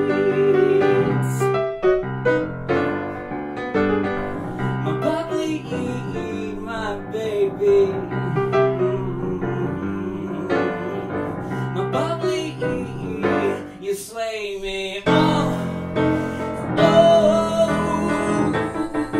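Piano playing an instrumental passage of a musical-theatre song, chords and melody notes at a steady moderate loudness, after the singing has ended.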